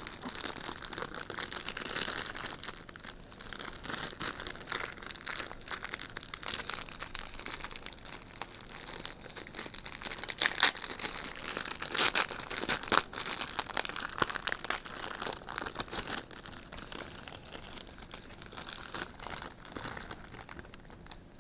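Thin clear plastic bag crinkling and crackling as hands open and handle it, with the sharpest, loudest crackles about halfway through.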